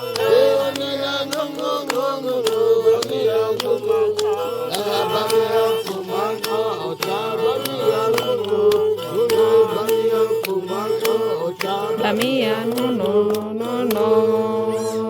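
Background music: a melodic line bending over a steady low drone, with regular light percussion taps.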